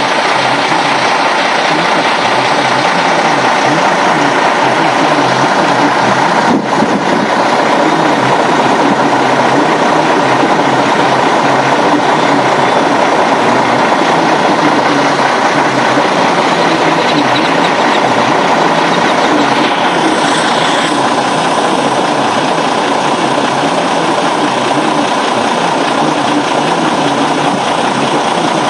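Steady loud rush of strong storm wind and rain, with a single knock about six and a half seconds in.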